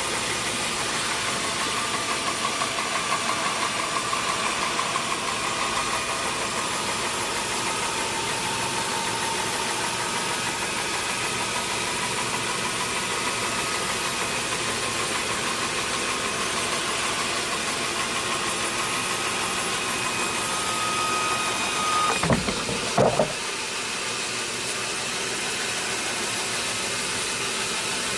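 Sawmill machinery running steadily, a constant mechanical noise with a faint high whine. The whine stops abruptly about 22 seconds in, followed by a brief loud clatter.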